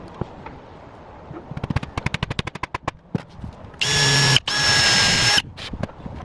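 Power drill running in two short bursts, each with a steady whine, after a run of rapid clicking.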